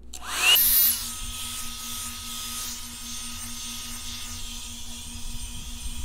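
Revlon One-Step hot-air brush switched on. Its motor whine rises quickly to a loud peak, then settles after about a second into a steady whine with rushing air.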